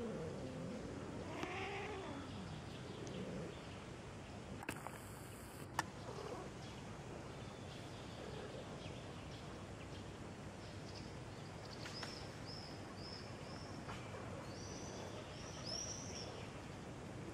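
Domestic cats yowling during mating: long wavering wails that rise and fall in pitch over the first few seconds. Two sharp clicks about five seconds in, then a quieter stretch with runs of short high chirps later on.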